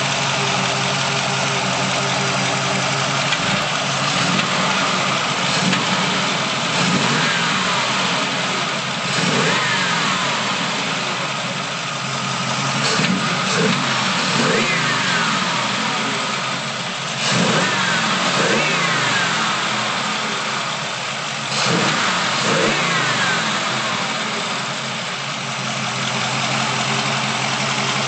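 Chevrolet 350 cubic-inch Fast Burn crate V8 (385 hp) with shorty headers and a free-flowing exhaust, idling steadily at first and then revved in a series of short blips every couple of seconds, each rev rising and falling back to idle.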